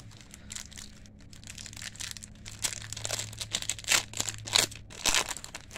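Foil trading-card pack wrapper crinkling and tearing as it is pulled open by hand. The crackling grows louder through the second half, with the sharpest crackles about four seconds in.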